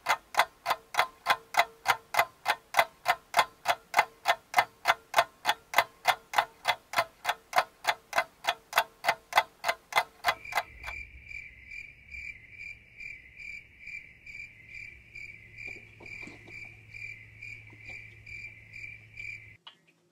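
A ticking clock runs at a fast, even rate of about four ticks a second. About ten seconds in it gives way to chirping crickets, a high, evenly pulsing chirp over a low hum, which stops shortly before the end. Together they are the comic boredom sound effect.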